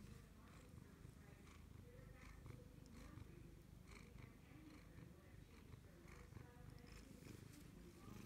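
Cat purring, faint and steady, with faint scattered rustles.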